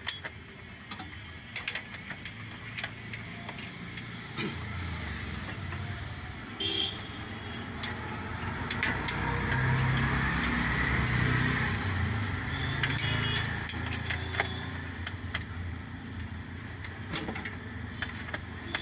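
Vehicle engine running, its rumble swelling to loudest about halfway through and then easing, with scattered sharp metallic clicks and knocks.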